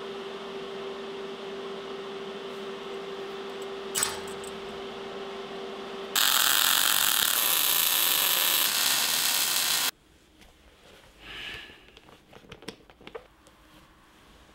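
TIG welding arc running with a steady hum and hiss, a short click about four seconds in. Then a MIG welding arc crackling and hissing loudly with spatter for about four seconds, cutting off suddenly, followed by faint handling noises.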